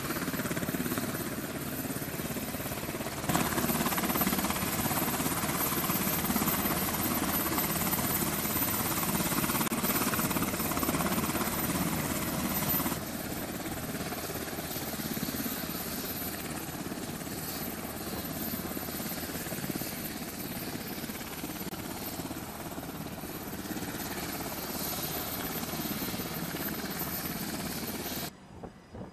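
Navy MH-60 Seahawk helicopter running on deck: the steady whine and rush of its twin turbine engines and turning rotors. The sound gets louder about three seconds in, drops back near thirteen seconds, and cuts off just before the end.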